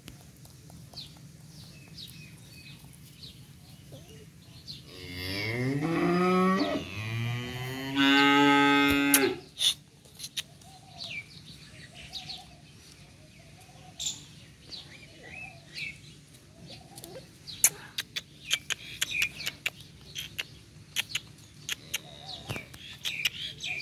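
A cow mooing: one long, low call of about four seconds that starts about five seconds in and rises in pitch, with faint bird chirps and small clicks around it.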